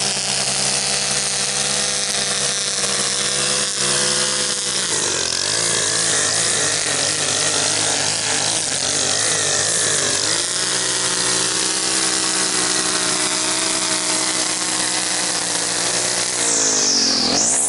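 Gas string trimmer engine running near full throttle while edging grass along a sidewalk. Its pitch dips and wavers for several seconds in the middle, then drops away near the end as the throttle is let off.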